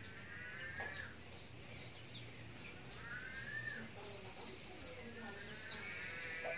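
Faint farmyard background: small birds chirping, with distant farm animals calling in a few drawn-out cries, the last starting near the end.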